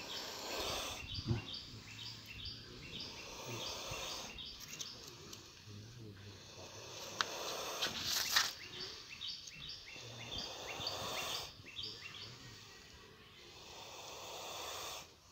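Spectacled cobra, reared with its hood spread, hissing in breaths that come and go every couple of seconds, with small birds chirping over it.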